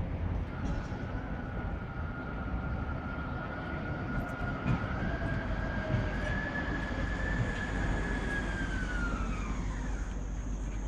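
Electric articulated tram pulling into the stop: a high whine that holds, rises slightly about halfway through, then falls in pitch as the tram brakes to a halt near the end, over a low street rumble.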